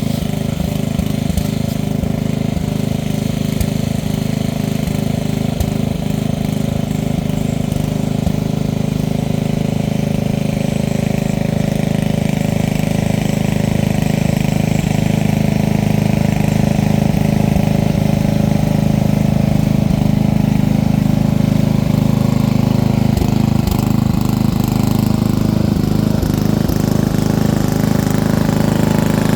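Small off-road vehicle's engine running steadily, getting a little louder about halfway through.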